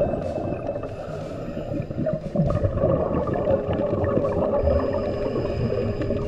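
Underwater sound picked up by a diver's camera: a muffled, churning rumble with short bursts of scuba exhaust bubbles. A steady hum comes in about halfway through.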